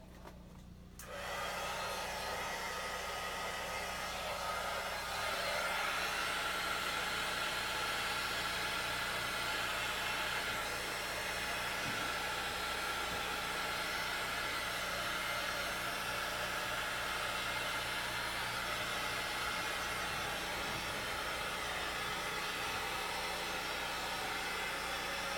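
Electric hot-air blower running steadily, warming freshly poured resin and paint. It switches on about a second in and gets louder around five seconds in.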